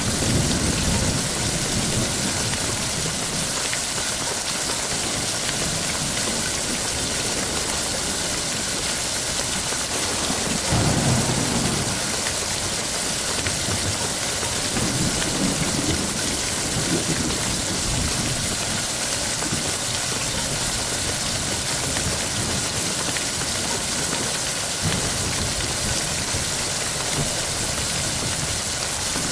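Steady heavy rain, with low rolls of thunder rumbling three times: at the start, about eleven seconds in, and again a few seconds later.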